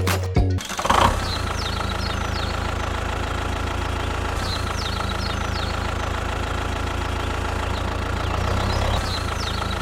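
Diesel-type engine idling steadily, with a constant low throb. Short high chirps repeat over it.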